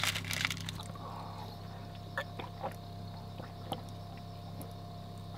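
Faint chewing and small mouth clicks over a steady low hum, with a brief rustle at the start.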